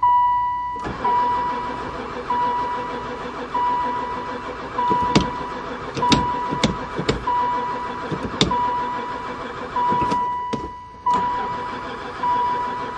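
A long-parked van's starter cranking the engine over without it catching, in two spells with a short break about ten seconds in, while a warning chime beeps steadily about once a second. It cranks without firing even with fuel poured into the intake, which the owner takes for no spark.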